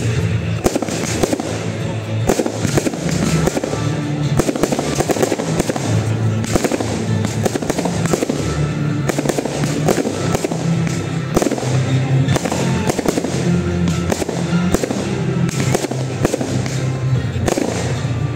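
Aerial fireworks going off: many bangs and crackles in quick succession as shells burst. Music with a steady bass line plays underneath.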